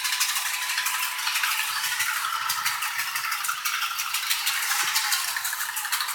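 Model trains running around sectional track on a layout: a steady, high rattling clatter of small wheels and rail joints.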